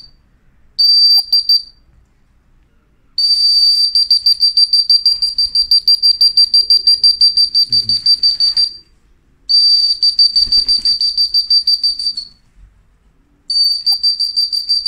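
A trilling whistle blown close by in repeated blasts, a short one about a second in and then three long ones, calling racing pigeons down to the loft as they return from a race.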